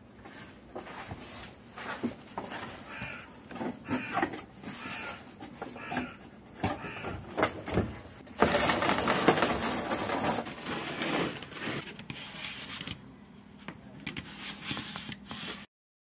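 Scattered knocks and scrapes of hands working a car's steel fuel tank from underneath, with a louder, rougher stretch of about two seconds a little past halfway.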